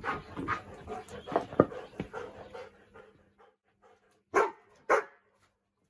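A dog panting in quick, rhythmic breaths, then two sharp barks about half a second apart near the end.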